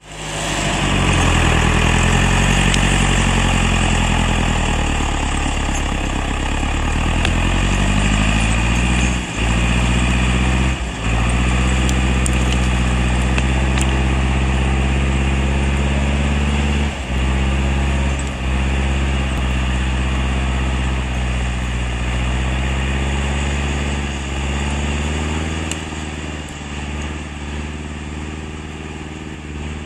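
The diesel engine of a John Deere 440A log skidder running while the machine works, its note rising and falling with the throttle and dropping briefly a few times. It fades in the last several seconds as the skidder moves off.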